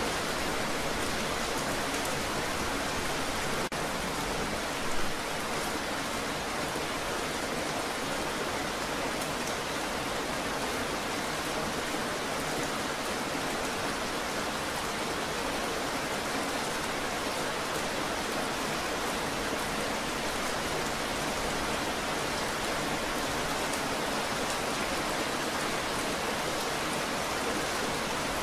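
Steady rain falling on a wet paved walkway, an even hiss of drops spattering into shallow puddles, with a brief louder patch about five seconds in.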